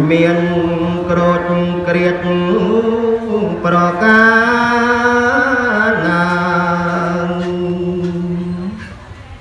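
A man singing Khmer smot, solo Buddhist chanting in long held notes that bend and waver in pitch. Two long phrases with a short break between them, the voice dropping away near the end.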